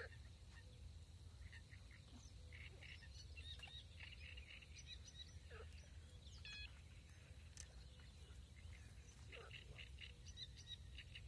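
Faint birdsong: many short scattered chirps and a few sweeping calls from small birds, over a low steady background rumble.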